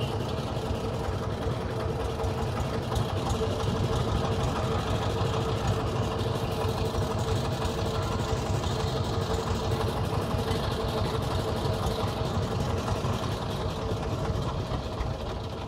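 Boat engine running steadily at a low, even speed.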